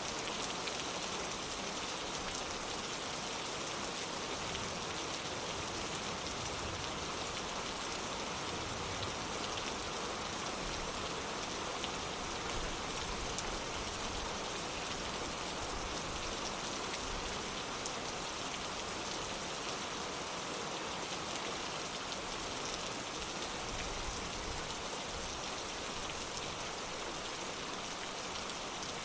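Steady rain falling: an even hiss with fine, scattered drop ticks.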